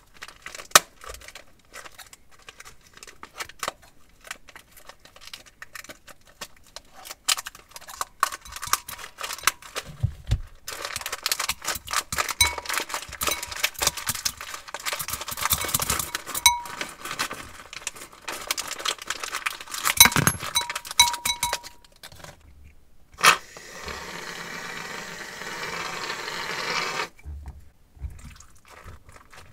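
Plastic piping bag being handled and snipped open with scissors, with scattered clicks and rustles. Then dense crinkling and crackling of the plastic bag for about ten seconds as star-sequin decoration is squeezed out onto wet slime. Near the end a sharp click, then a steady hiss for about three seconds that stops suddenly, as white foam goes into the bowl.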